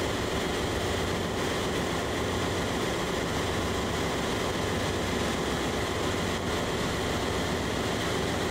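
Steady machinery noise of a ship's engine room, an unbroken loud hum and rush of running machinery.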